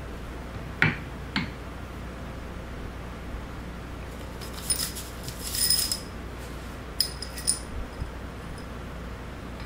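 Two short knocks as the valve body is handled, then bursts of ringing metal clinks: the long steel tie bolts of a Gresen hydraulic control valve knocking against each other and the tools as they are picked up off the bench.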